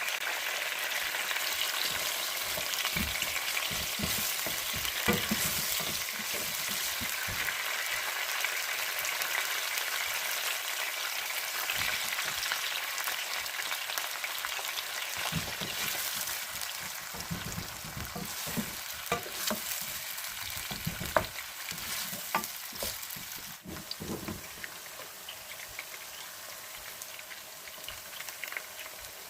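Food sizzling as it fries in a pan, with a spoon knocking and scraping against the pan from time to time as it is stirred. The sizzle eases somewhat in the last few seconds.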